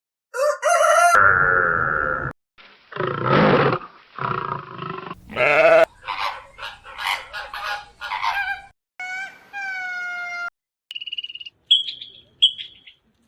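A string of different animal calls, one after another. There is a long pitched call near the start, a run of shorter calls in the middle, a clear call a little before the end, and short high chirps near the end.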